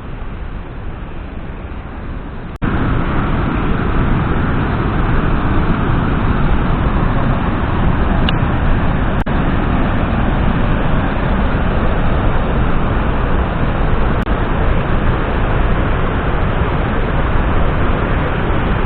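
Loud, steady rushing of water with no rhythm or tone. It jumps abruptly louder about two and a half seconds in, then holds.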